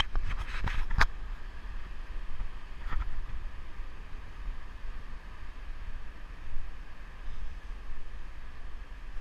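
Wind rumbling on a handheld camera's microphone over a steady outdoor rush, with a few sharp knocks in the first second and another at about three seconds.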